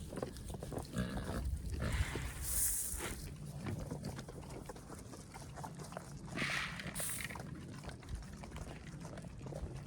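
Hungry livestock calling out for feed. There are two brief, louder bursts of noise about two and six and a half seconds in.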